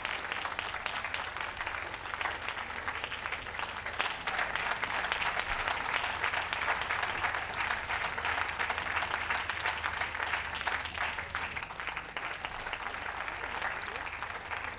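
Crowd applauding steadily, growing louder about four seconds in and easing a little near the end.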